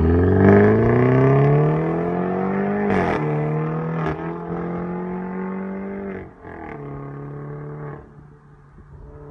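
BMW 530Li (G38) 2.0-litre turbocharged four-cylinder on an iPE aftermarket exhaust, accelerating hard away. The revs climb, drop at a gear change about three seconds in, climb again, and drop at another change about six seconds in. The note fades as the car pulls into the distance.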